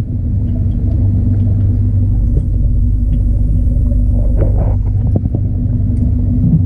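Steady low rumble and hum of an aquarium water pump and its outflow, heard through a camera submerged in the tank, with a few faint knocks about four and a half seconds in.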